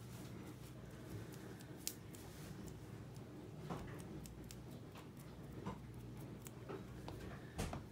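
Quiet room tone with a low steady hum and a few faint, scattered clicks and taps, the loudest near the end; no meowing or trilling.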